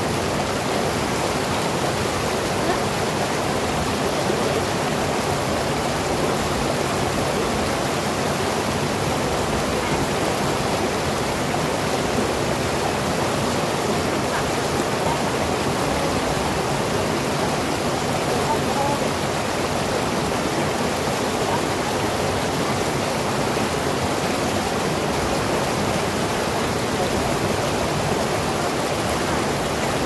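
River whitewater pouring over a rock ledge and through rapids: a steady, unbroken rushing of water.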